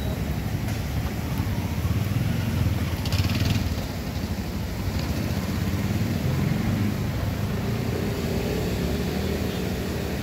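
Motor vehicle engines running through a flooded road, a steady low rumble. A short hiss comes about three seconds in.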